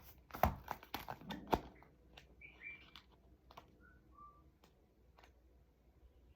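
Faint sharp clicks and taps, then a few short, high chirps like a small bird's, followed by scattered faint ticks.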